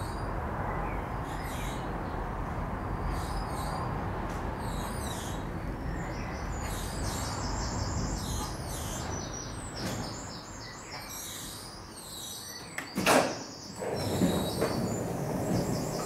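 Funicular car rumbling slowly along its rails as it pulls into the station, with high chirps over the running noise; it goes quiet about ten seconds in as the car stops, then there is a sharp loud clunk about thirteen seconds in, followed by a short sliding, rattling sound.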